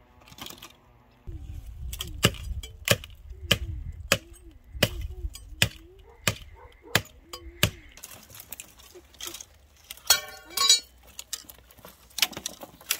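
A knife chopping on a board, with sharp, regular knocks about every two-thirds of a second and a faint wavering tone underneath. The knocks stop about two-thirds of the way in. Near the end comes a brief, loud, harsh pitched sound.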